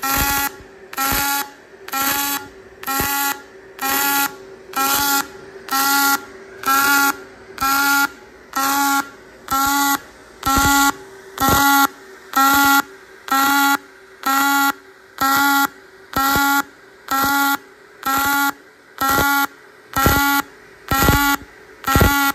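Fronius PMC Interval MIG welding arc on a robot torch, buzzing in even bursts about once a second with a fainter steady hum between them. The on-off rhythm is the interval process switching between its high and low current phases, which lays a stack-of-dimes bead.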